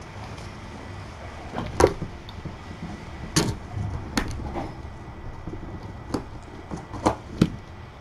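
Several sharp, irregularly spaced knocks and clicks over a low steady room hum.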